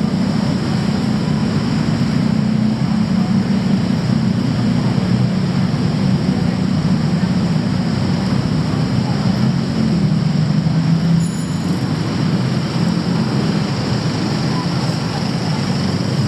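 Steady low rumble of motor traffic on a city street, easing slightly about two-thirds of the way through.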